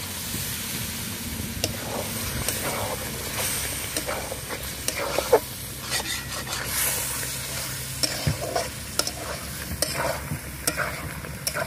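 Chicken curry sizzling and bubbling in a large metal kadai with a little water just added, while a spatula stirs it, scraping and clicking against the pan many times.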